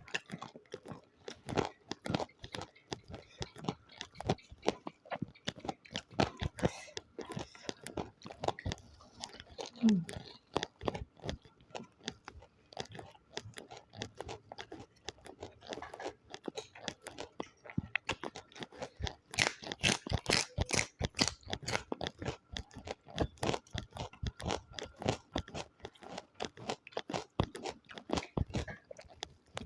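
Close-miked eating: steady chewing with frequent crisp crunches, the crunching loudest and densest about two-thirds of the way through, and a short "hmm" hum about ten seconds in.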